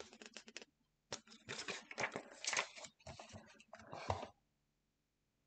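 Paper being handled and slid into place on a paper trimmer. It comes as a run of crinkles, rustles and scrapes in several bursts and stops about four seconds in.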